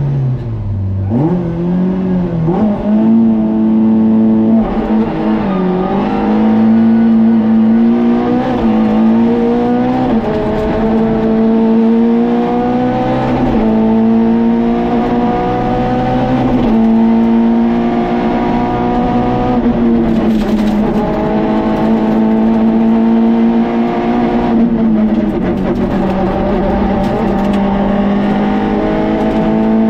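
Peugeot 106 rally car's four-cylinder engine, heard from inside the cabin, pulling away hard from a standstill. It climbs through the gears with a sharp drop in pitch at each quick upshift, then runs at high revs along the stage: long climbs in pitch, each broken by a drop at a shift or lift.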